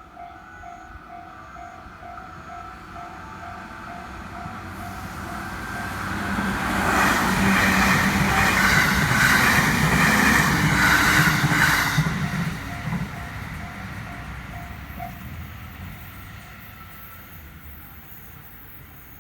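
Railway level-crossing warning bell ringing in a steady repeated ding while a train comes up and passes loudly for about five seconds, wheels clattering over the rail joints, then fades away. The bell stops about fifteen seconds in.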